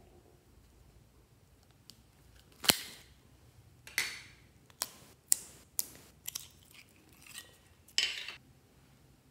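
Plastic candy-shaped container of orange jelly slime being handled and opened: one sharp plastic snap a little under three seconds in, then a string of shorter crackling clicks as the jelly is worked out of it.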